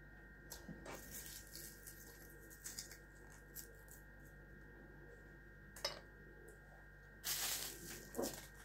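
Quiet eating sounds of turkey picked apart by hand: soft clicks and small rustles, with a louder tearing, rustling noise about seven seconds in. A faint steady electrical whine and hum sits underneath.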